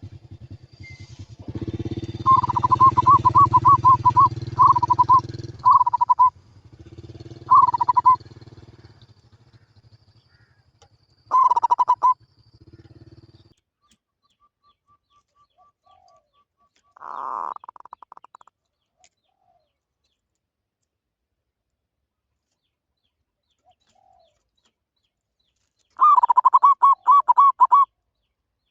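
Zebra dove (merbok) cooing: bursts of rapid, stuttering coos, repeated several times in the first dozen seconds, then a long pause and another burst near the end. A steady low hum lies under the first half.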